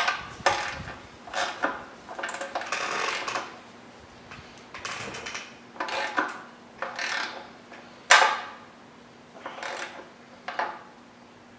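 Ratchet with a 16 mm socket clicking in short bursts of strokes as the oil pan drain bolt is tightened back in, with one louder stroke about eight seconds in.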